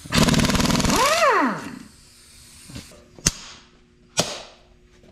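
Air impact wrench rattling for about two seconds, its pitch rising and then falling as it winds down. Then a slide hammer strikes twice, sharp metal-on-metal knocks about a second apart, working a plug out of the cylinder head.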